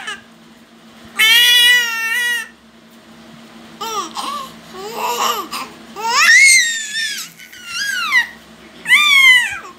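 Baby's squealing, babbling cries: about six separate high-pitched calls with gaps between them, several gliding up then falling in pitch, the longest held for about a second near the start.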